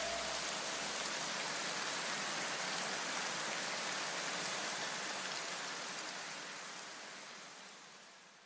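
A steady, rain-like hiss of noise left as a music hit dies away, fading out gradually to near silence by the end.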